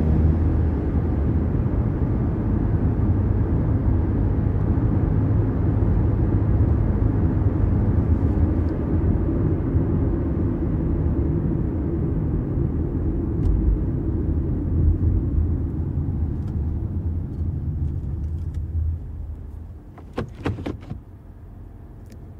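Interior sound of a Mazda CX-5 small SUV driving: a steady low engine and road rumble that gradually eases off, then falls away about twenty seconds in. A few short clicks follow near the end.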